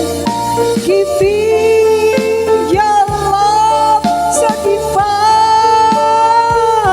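Elderly woman singing with a live band of drums, keyboard, bass and rhythm guitar, holding long notes with vibrato.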